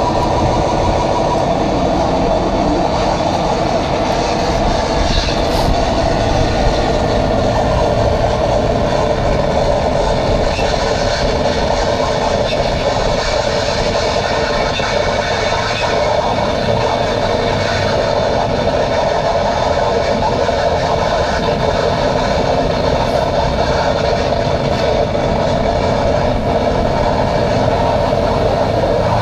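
Live harsh noise music: a steady, loud wall of distorted electronic noise played through a small amplifier, with a strong buzzing midrange drone over a low rumble.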